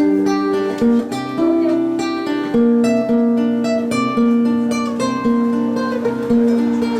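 Acoustic guitar playing an instrumental passage of plucked and strummed notes, a few notes a second.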